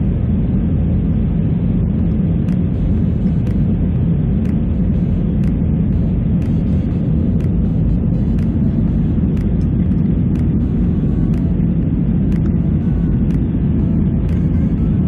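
Steady, loud roar of a large waterfall crashing down, with no change throughout.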